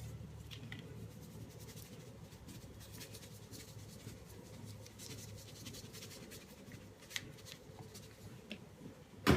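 Faint rubbing and handling sounds as adobo seasoning is worked onto raw pork spare ribs by hand, with a few light clicks near the end, over a low steady hum.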